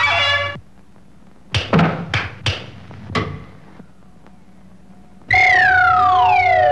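Cartoon sound effects. The jazz music cuts off, a few sharp knocks follow, and then a loud pitched tone slides downward over a steady held note as the double bass spins.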